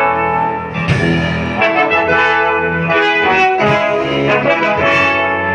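Instrumental break in a club anthem: a band with a brass section playing the melody between sung verses.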